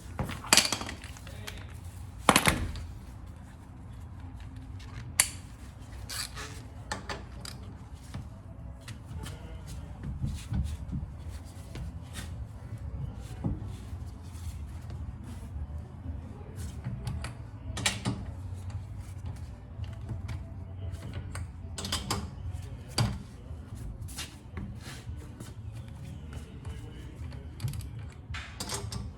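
Scattered knocks and clicks, a few sharp loud ones in the first five seconds, then lighter irregular ones, over a steady low hum.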